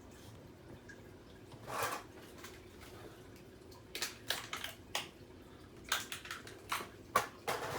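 Light clicks and taps of small plastic toy playset pieces being handled and set down: one short scrape about two seconds in, then clusters of quick clicks through the second half.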